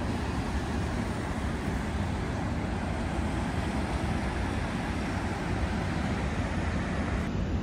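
Ocean surf breaking on a reef, mixed with wind on the microphone: a steady rushing noise with a heavy low rumble.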